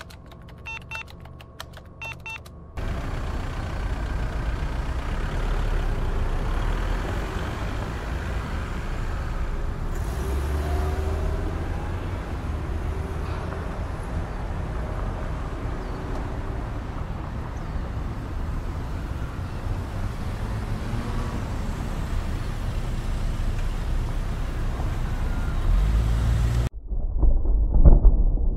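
Busy street traffic: a steady, noisy din of car and vehicle engines. It cuts in suddenly a few seconds in, after a brief patter of computer keyboard typing. Near the end it switches abruptly to a deep rumble.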